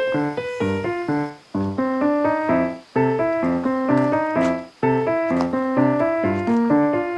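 Background music: a quick keyboard melody of short, separate notes in phrases with brief breaks between them.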